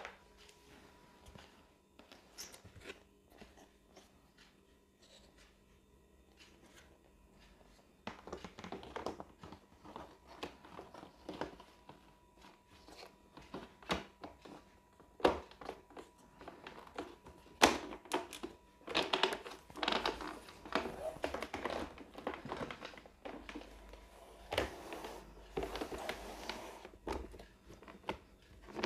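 Hard plastic panels of a plastic locker cabinet being handled and fitted together: scattered clicks and knocks, growing busier about eight seconds in, with plastic crinkling.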